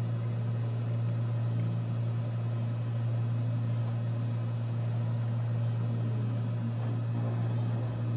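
A steady low hum with a faint hiss behind it, unchanging in pitch and level.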